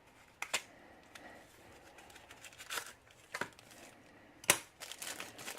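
Scattered light clicks and taps of a small pin-tumbler practice lock and its key being handled, the loudest about four and a half seconds in, followed by a quick run of smaller clicks.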